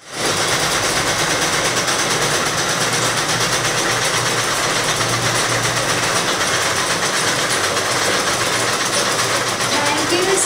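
Mechanical sewing machine running with a steady, fast clatter. A woman's voice starts faintly over it near the end.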